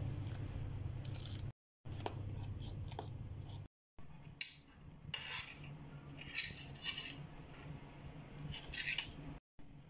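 Water poured into gram-flour batter and mixed in a steel bowl, a steady scraping swish. From about four seconds in, hands press a soft potato and chicken filling into split green chillies, giving small irregular wet squishes and crackles.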